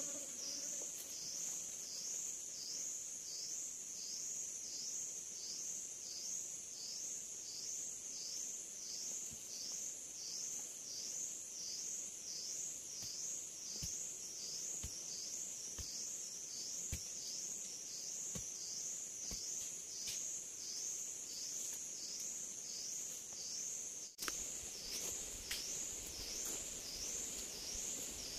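A chorus of forest insects droning in a high, pulsing buzz, about two pulses a second. A few faint knocks sound around the middle.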